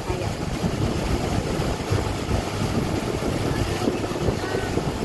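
A motor boat underway: a steady low rumble of engine and water, with wind buffeting the microphone.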